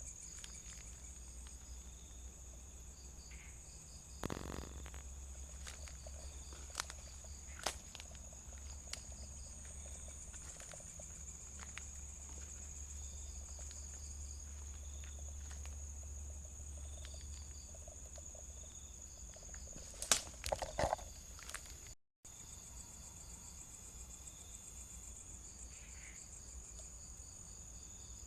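Night insects chirring in one steady high-pitched tone throughout. A few sharp clicks or knocks break in, the loudest cluster about two-thirds of the way through. The sound cuts out completely for a moment just after that.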